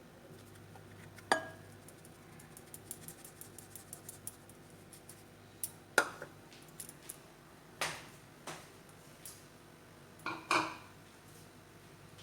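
A spoon clinking and tapping against a mixing bowl several times as sugar is spooned into curd for cake batter, with a quick run of light ticks early on between the louder knocks.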